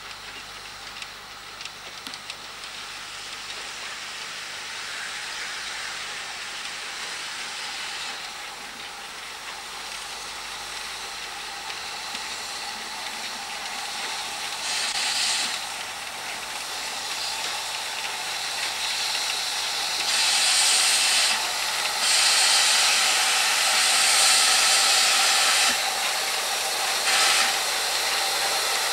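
Narrow-gauge steam tank locomotive hissing steam as it rolls slowly along. The hiss grows louder, with a loud blast of steam about halfway through and long loud blasts with short breaks through the last part.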